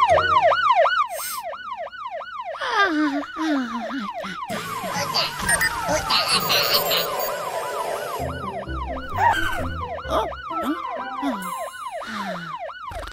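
Cartoon fire-engine siren sounding a fast yelp, about four rising-and-falling sweeps a second. It stops and starts a few times, with light music underneath.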